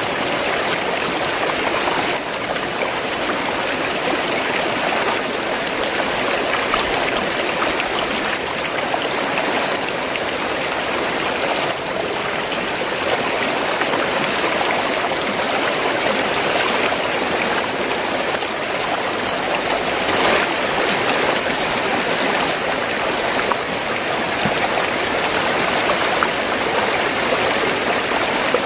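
Fast-flowing stream of water gurgling steadily over stones.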